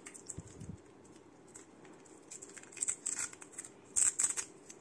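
Thin protective plastic film being peeled and crinkled off a metal watch strap: faint scattered crackles, with louder bursts of crinkling about three seconds in and again near the end.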